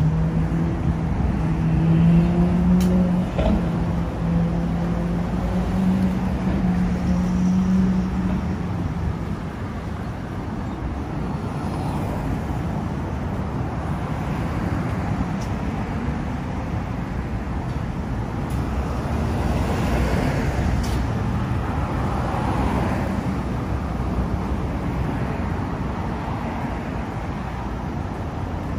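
Road traffic on a multi-lane city street: a steady wash of cars driving past, with a low engine hum from a nearby vehicle over the first eight or nine seconds and a car passing more loudly about twenty seconds in.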